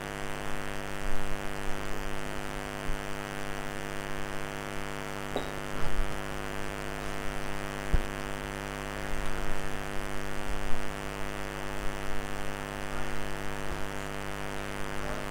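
Steady electrical mains hum: a buzz made of many even tones held at one pitch, with a couple of faint clicks over it.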